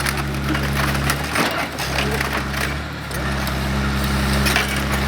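O&K RH6 tracked excavator engine running steadily, with repeated irregular cracks and crunches of the Opel Corsa's body being crushed under the machine.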